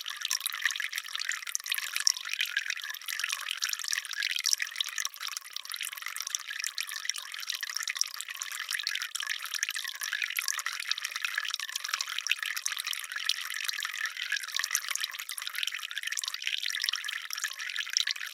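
Water dripping and trickling in a dense, irregular patter of small ticks, steady throughout.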